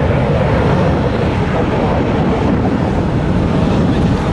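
Jet engines of a Boeing 737 climbing out after take-off at high thrust: a loud, steady rumble, with wind buffeting the microphone.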